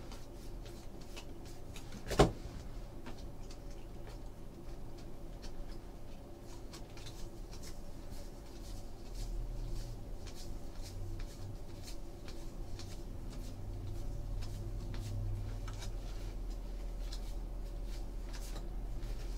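Baseball trading cards flicked off a stack one after another, a run of faint light ticks and slides, with one sharper click about two seconds in. A low steady hum runs underneath.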